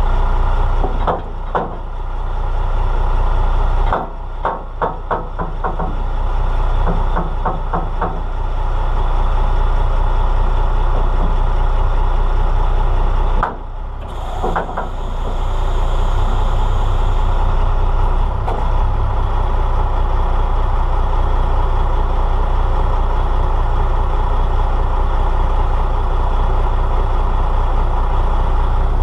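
Semi-truck diesel engine running steadily while backing up to a lowbed trailer. In the first several seconds it is punctuated by clusters of quick clicks and knocks. About halfway through, the sound drops briefly and a couple of knocks follow.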